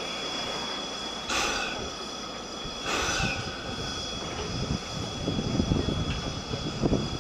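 Steam locomotive C11 171, a C11-class tank engine, moving off slowly. Two sharp bursts of steam hiss come about a second and a half apart, with steam escaping at the cylinders, and a low, uneven rumble of the engine and running gear builds in the second half.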